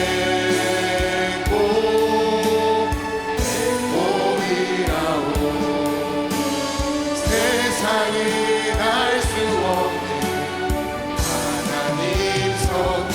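Group singing of a gospel worship song with band accompaniment: several voices over sustained instrument chords and a regular low beat.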